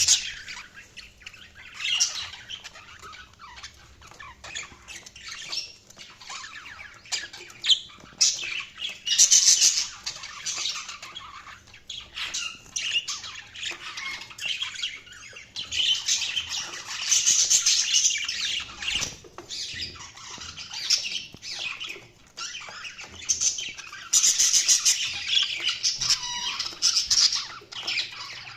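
Budgerigars chirping, chattering and squawking continuously, in busy bursts that come and go.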